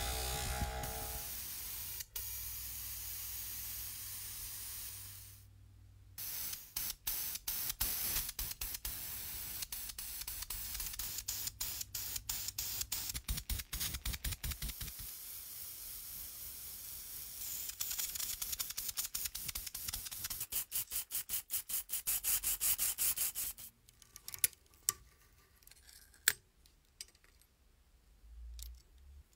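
A bench buffing wheel runs with a steady hiss and hum as a small metal toy part is polished on it. Then a long run of rapid, evenly pulsing spray hiss as paint goes on. Near the end come a few sharp clicks of the toy's small metal gears being handled.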